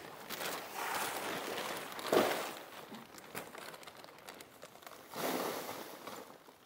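Rustling and crinkling of material being handled, in two spells, with a single knock about two seconds in.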